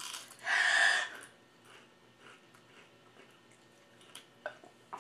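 A short, loud, breathy sound from a person about half a second in, lasting under a second, followed by a few faint clicks.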